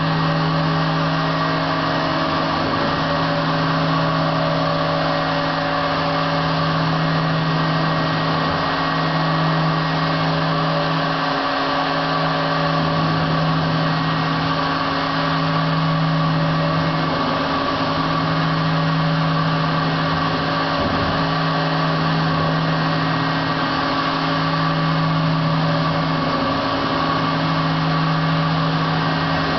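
Motionmaster three-axis CNC router running: a steady motor hum and whine that dips briefly every few seconds.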